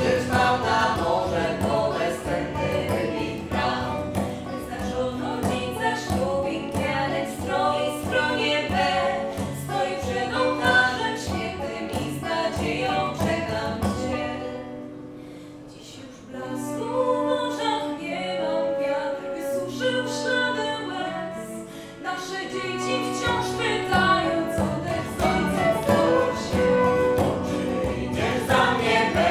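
Live folk band with acoustic guitar, banjo and frame drum playing while several voices sing in harmony. About halfway through the music drops to a quieter, sparser passage with held voices and no drum strokes, then the full band comes back in with about six seconds left.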